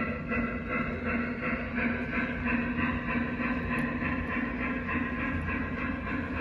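Model train cars rolling along the track over a steady low hum, with a regular clicking of about four a second.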